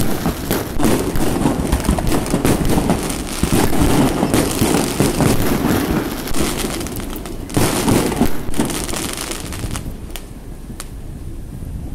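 Fireworks display: a dense, continuous run of bangs and crackles that thins out over the last couple of seconds.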